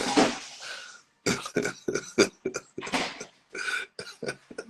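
A person making a quick run of short, breathy throat sounds, like coughing and throat clearing.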